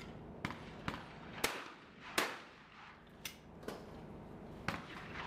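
Shotgun shots on a clay layout, about seven sharp reports in five seconds at differing loudness, as from guns at several distances. The loudest comes a little past two seconds in and echoes away.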